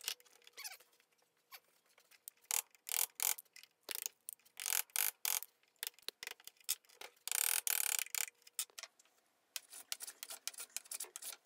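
Hand tools on hardwood: irregular short hand-saw strokes and sharp clicks cutting double tenons, with one longer stroke about eight seconds in. Near the end, short strokes of a block plane shaving the wood.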